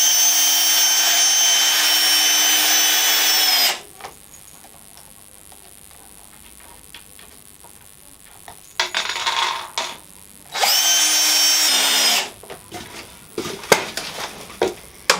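Cordless drill boring pilot holes into wooden strips: a steady high-speed whine for nearly four seconds, a shorter noisy sound, then a second run of about a second and a half that slows down just before it stops, followed by a few clicks of handling.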